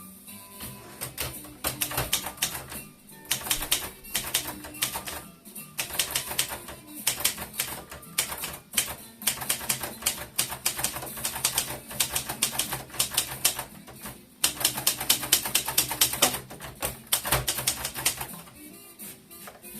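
Brillant Perfekt 320S portable typewriter being typed on: rapid runs of key strikes broken by short pauses, over background music.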